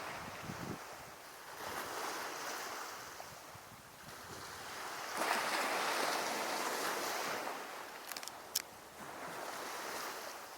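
Sea waves washing onto the shore, the surf swelling and fading in surges every few seconds, with a few short sharp clicks about eight seconds in.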